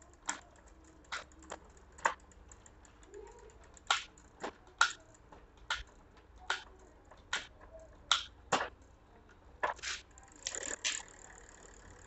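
Bicycle drivetrain clicking as the rear wheel is turned by hand: sharp, irregular clicks from the chain running over the rear cassette sprockets and derailleur, about one every half second to a second.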